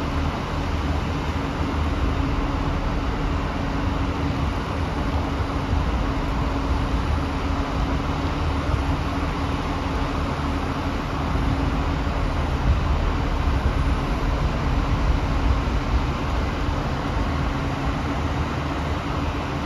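Iarnród Éireann 22000 Class diesel railcar running with a steady low engine hum and a constant drone.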